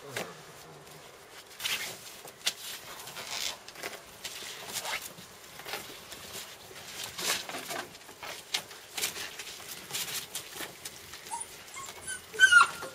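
Young puppies playing and tugging at a rope toy: scattered scuffling sounds, then a few short high whines and yelps near the end.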